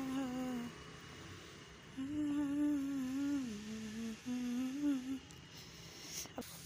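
A woman humming the aarti melody in long, held notes with slight swells in pitch, in short phrases with pauses between them.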